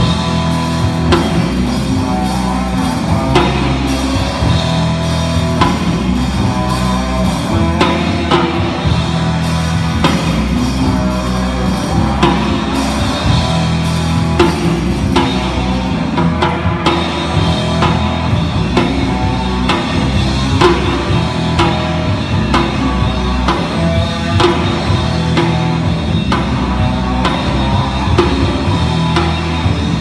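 Rock band playing live: electric guitars over a drum kit.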